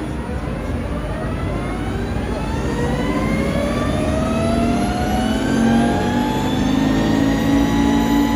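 Harley-Davidson LiveWire electric motorcycle accelerating gently on a rolling road: the whine of its electric drive climbs steadily in pitch as it speeds up to about 50 mph, over a low rumble from the rear tyre turning the roller, growing a little louder.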